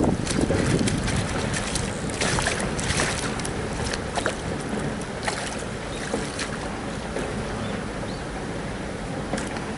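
A rainbow trout splashing in a landing net at the water's surface: loud splashes at first, then scattered sharp splashes that die away after about five seconds.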